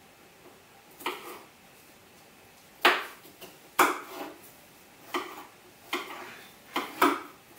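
Knives chopping bell pepper, the blades knocking down onto the cutting surface in about seven irregular sharp knocks and clicks that begin about a second in.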